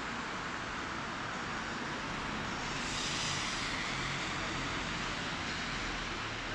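Steady road traffic noise on a wet city street, swelling about three seconds in as tyre hiss from a passing car.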